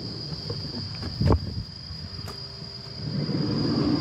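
Insects droning with a steady high-pitched tone, with a single loud knock about a second in and a low rumble building near the end.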